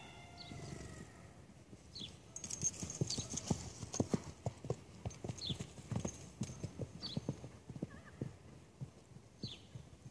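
Hoofbeats of a horse moving past over the field: a run of dull, uneven thuds, several a second, starting about two seconds in and fading out near the end, with short high bird chirps above them.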